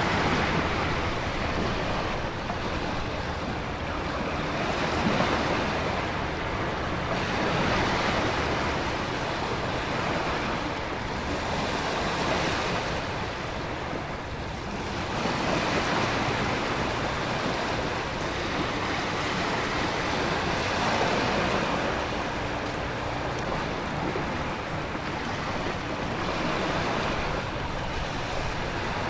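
Storm ambience of heavy rain and wind with ocean waves crashing, a dense steady rush that swells and fades every few seconds.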